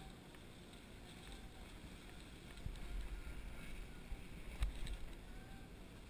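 Water washing and splashing around an elephant wading through a shallow stream, under a low rumble of wind and bumping on the camera that swells about halfway through. There is one sharp knock a little before the end.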